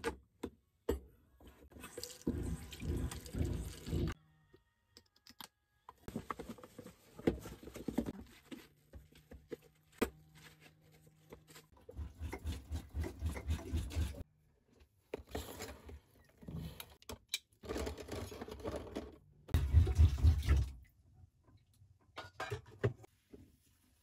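Water from a camper's kitchen faucet running on and off in short bursts while dishes and cutlery are hand-washed in a plastic basin in the sink, with short knocks and clinks between the bursts. The longest and loudest burst comes near the end.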